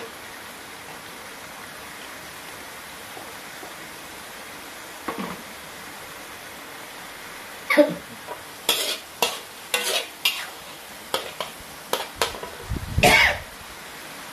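Blended chili paste sizzling steadily in a metal wok. From about eight seconds in, a metal ladle scrapes and knocks against the wok about ten times as the paste is stirred.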